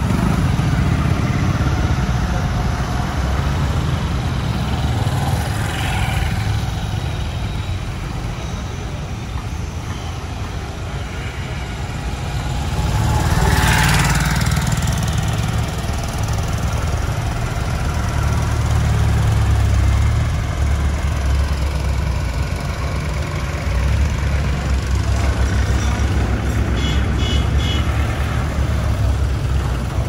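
Busy road traffic passing close: heavy trucks and cars running by with a steady low engine rumble that swells as each vehicle goes past. There is a loud rush about halfway through and a quick run of short high beeps near the end.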